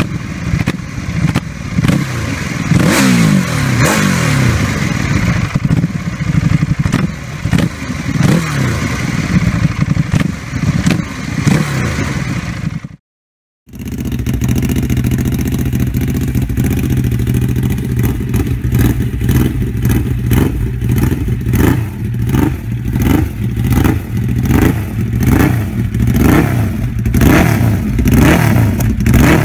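Ducati Hypermotard 821's 821 cc L-twin engine through an Akrapovic full exhaust, idling and revved up and down several times. After a brief cut, the same engine through an Austin Racing exhaust is blipped in quick short revs, about once a second.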